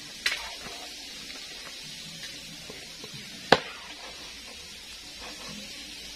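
A kitchen knife chopping raw chicken on a wooden cutting board: two sharp chops about three seconds apart, the second louder, over a steady background hiss.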